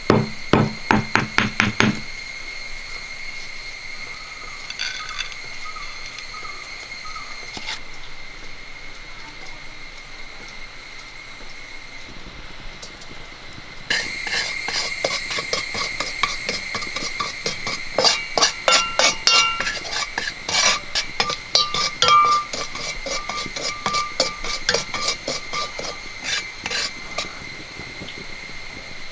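A stone pestle pounds in a stone mortar, about three or four strikes a second, grinding roasted fenugreek and mustard seeds to powder. It stops about two seconds in. From about halfway through, a metal spatula scrapes and clicks irregularly against an iron kadai while stirring salt as it dry-roasts over a wood fire.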